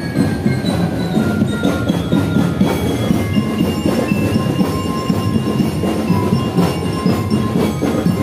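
Marching drum-and-lyre band playing a march: a steady drumbeat under a bell-lyre melody of ringing metallic notes.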